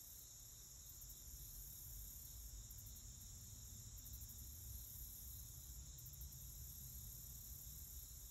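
Faint, steady chorus of insects trilling in high, unbroken tones, over a low rumble.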